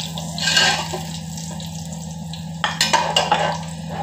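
A short hiss from the cooking pot about half a second in, over a steady low hum. Near the end, several sharp clatters as a ceramic plate is set down on a stone counter.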